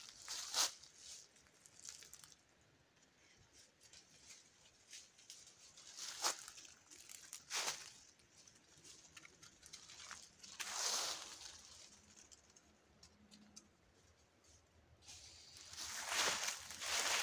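Dry fallen leaves crunching and rustling in scattered bursts, as from footsteps through leaf litter, with quiet stretches between and a denser run of steps near the end.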